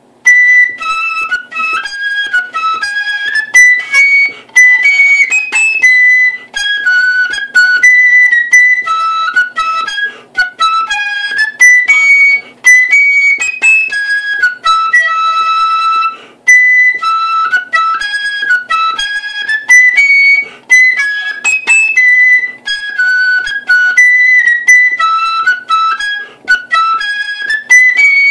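Solo black marching-band flute playing a quick jig melody high in its range, in phrases broken by short breaths.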